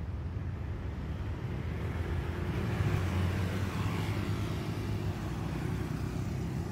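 Motor vehicle traffic: a steady low engine rumble, with a vehicle passing that swells louder about three seconds in and then fades.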